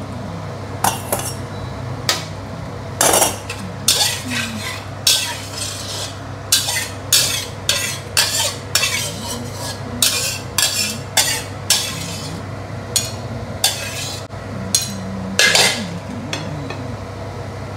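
Metal wok spatula scraping and clinking around a metal wok, stirring the little oil and sauce left in it in many short, irregular strokes. A steady low hum runs underneath.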